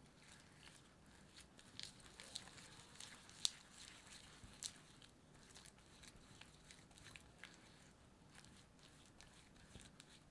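Silicone spatula stirring and scraping a soft, sticky butter-and-sugar paste in a glass bowl: faint, irregular soft clicks and smacks, with one sharper tap about three and a half seconds in.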